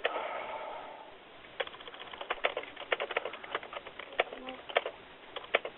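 Irregular tapping of computer keyboard keys, about twenty quick clicks over some four seconds, heard through a telephone line.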